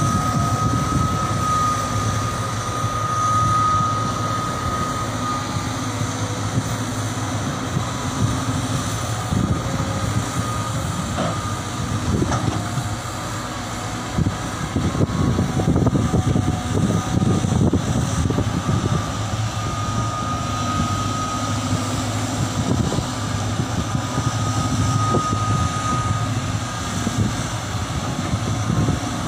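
Several Caterpillar hydraulic excavators working: diesel engines running steadily under load, with a thin high whine that fades in and out.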